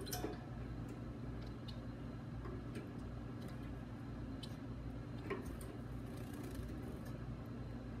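A steady low hum with a few faint, scattered clicks, the clearest just after the start and about five seconds in.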